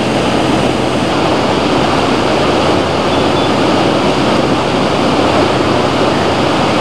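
Loud, steady rush of a swollen, muddy river in flood, the water pouring over a weir and surging along its banks.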